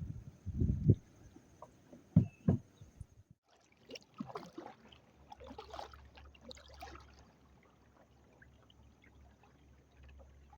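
Kayak moving across the river: water trickling and splashing along the hull. There are a few heavy low knocks in the first three seconds, and a low steady hum in the second half.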